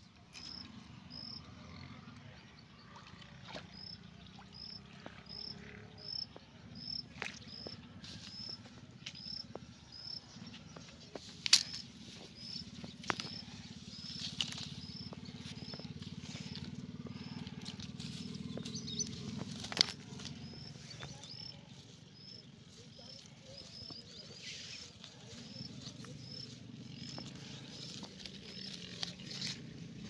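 A short high chirp repeats about once every two-thirds of a second over a steady low rumble, with rustling in grass and a few sharp clicks, the loudest about 11 and 20 seconds in.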